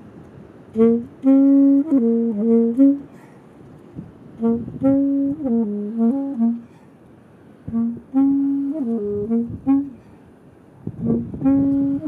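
Solo saxophone playing the same short melodic phrase again and again, each phrase about two seconds long with a pause between.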